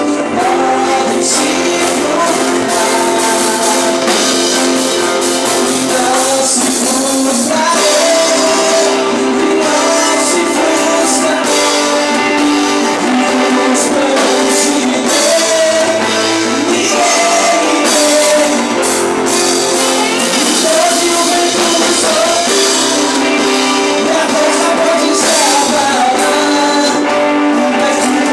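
Live worship music: a church band playing a song with singing, loud and continuous.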